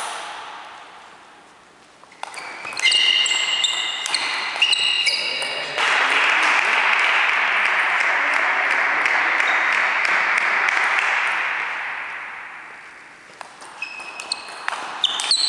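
Table tennis ball clicking sharply off bats and table in a rally, each hit ringing in the hall, then about six seconds of applause that fades away. Near the end the ball clicks again as the next rally begins.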